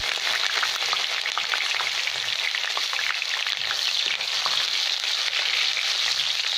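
Sliced garlic and ginger sizzling and crackling in very hot cooking oil in a nonstick wok while being stirred with a metal ladle.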